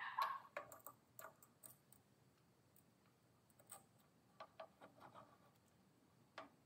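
Light clicks and taps of metal on metal as an oiled piston in a ring compressor is worked into the cylinder bore of a Predator 420 engine. A quick run of clicks in the first second or so, then a few scattered single clicks.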